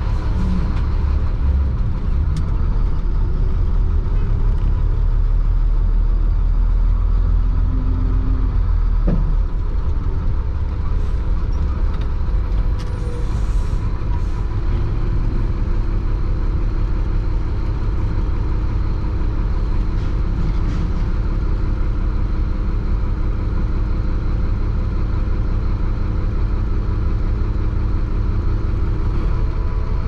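Chenglong concrete mixer truck's diesel engine running steadily under way, heard from the driver's cab as a constant low rumble with a steady engine drone.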